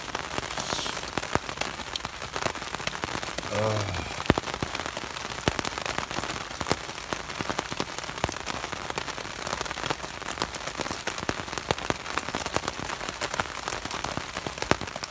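Heavy rain falling steadily on a tarp shelter, with many individual drops ticking sharply. A brief murmur of a man's voice just before four seconds in.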